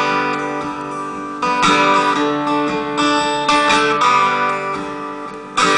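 Acoustic guitar strummed in chords, each struck and left to ring, as the instrumental passage of a folk song between sung lines.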